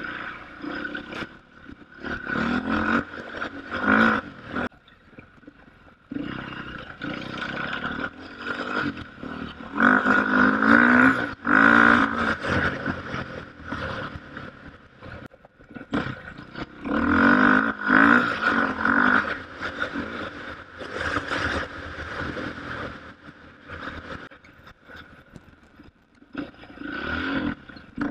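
KTM off-road motorcycle engine revving up and down with the throttle in repeated surges. The loudest come about ten to twelve seconds in and again around seventeen to nineteen seconds.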